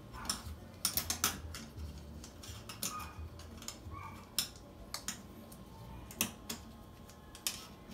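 Irregular metallic clicks and light taps of a screwdriver working the metal mounting ring of a garbage disposal mount in a sink drain.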